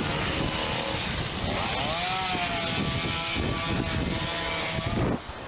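A small motor revs up, its whine rising about a second and a half in and then holding a steady high pitch until it cuts off near the end, over wind buffeting the microphone while riding.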